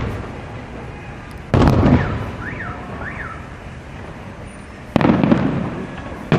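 Fireworks shells bursting overhead: two loud booms about three and a half seconds apart, each a sudden crack that fades into a rumble over a second or so. The rumble of an earlier burst dies away at the start.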